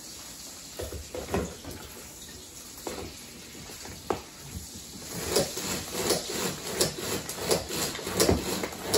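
Small hand-pulled cord food chopper chopping cilantro. A few clicks as its lid is fitted come first. About five seconds in, a quick run of whirring pulls starts, about three a second.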